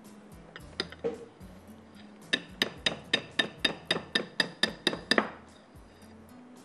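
A utensil knocked against a mixing bowl: two single knocks, then about a dozen quick ringing taps, about four a second, that stop a little after the middle, as batter is knocked off.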